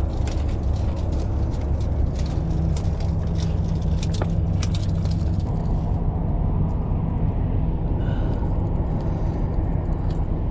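A steady low mechanical drone, like a large engine running, with light scattered clicks and ticks over the first five seconds or so.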